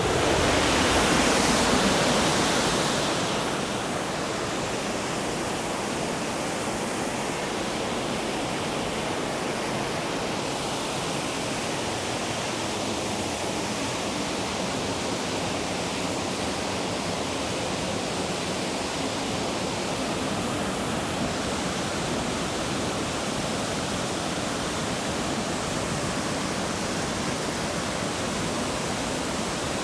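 Waterfall running high with snowmelt: a steady rush of falling water. It is a little louder for the first few seconds, then settles to an even level.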